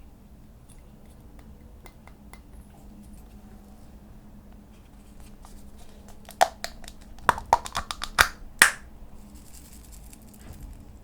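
Slime being pressed and worked by hand, quiet at first, then a quick run of sharp clicks and pops of trapped air in the last few seconds.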